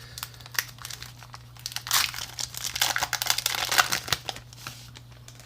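Foil Pokémon booster pack wrapper being crinkled and torn open by hand, a run of crackling rustles that is loudest in the middle.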